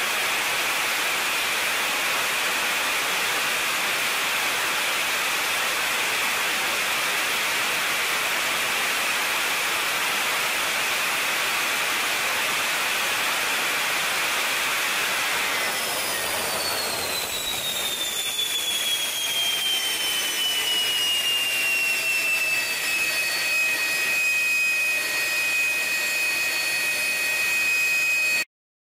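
Military jet engine running on a test-cell thrust stand with a steady roar. About halfway through the roar drops and a whine falls in pitch as the engine spools down, levelling off into a steady high whine. The sound cuts off abruptly near the end.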